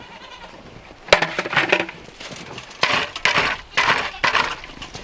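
Footsteps crunching through deep snow, about two steps a second, with a sharp knock about a second in.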